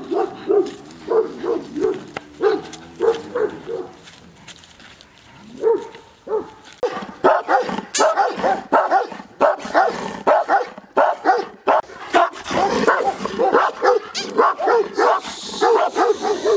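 Shepherd dogs barking in quick, repeated barks. The barking thins out for a couple of seconds about a third of the way in, then comes back louder and denser until the end.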